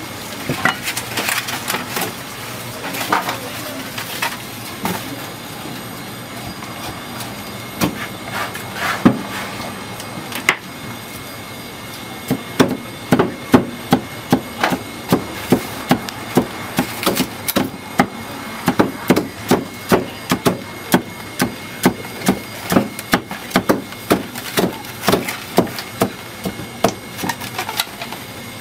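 Cleaver chopping roast meat on a thick round wooden chopping block. A few scattered chops come first, then a little before halfway a steady run of chops starts, about two a second.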